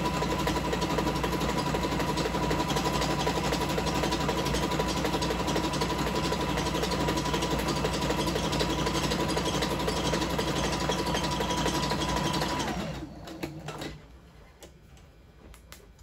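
Singer Fitline 6280 sewing machine running steadily at speed, sewing an overlock stitch along a fabric edge, with a steady high motor whine over the rapid needle stroke. About thirteen seconds in the whine drops away as the machine stops, followed by a few light clicks.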